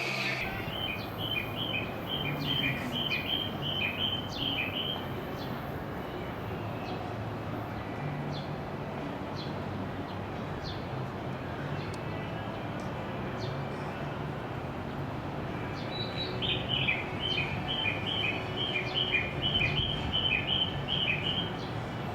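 Rapid, evenly spaced chirps alternating between two high pitches, in two runs of about five seconds each, one at the start and one near the end, over a steady low background hum.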